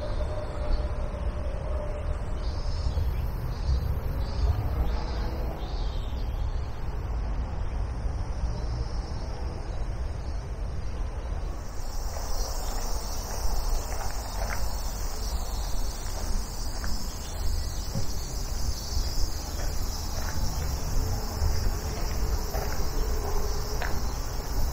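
Insects calling in the garden trees, at first in faint pulses and then, about halfway through, as a continuous high hiss, over a steady low rumble.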